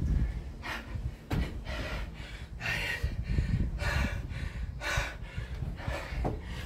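A man panting hard from exertion during burpees, with a loud gasping breath about once a second that signals exhaustion deep into a set of 100. Low thumps from his hands and feet landing on a wooden board run underneath.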